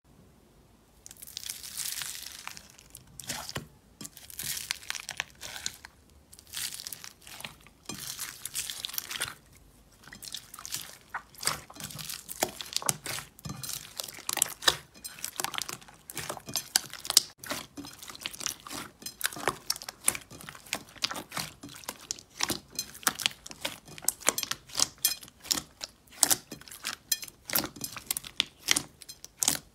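Pink floam, slime mixed with small foam beads, being squeezed and kneaded by hand, giving dense, rapid crackling and popping. Over roughly the first nine seconds, loose foam beads rustle in bursts as they are handled.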